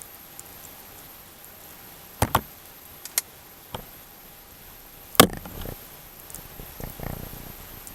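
Scattered sharp clicks and knocks of a socket wrench and small parts being handled while a snowblower's shroud mounting bracket is unbolted. There is a double knock about two seconds in, a few lighter clicks, and the loudest knock just after five seconds, followed by a few smaller ones.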